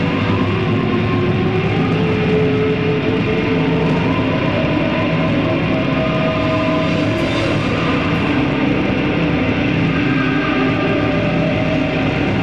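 Live instrumental psychedelic rock band with guitars, bass and keyboards playing a loud, dense drone of held notes that shift slowly in pitch.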